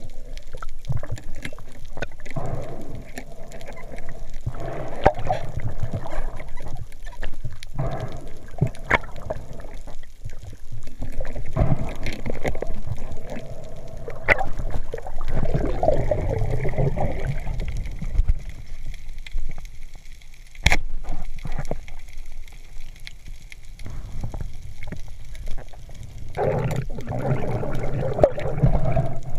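Muffled underwater water noise picked up by a camera below the surface: swishing and gurgling water as a freediver swims, with scattered sharp clicks. It goes calmer for several seconds past the middle and picks up again near the end.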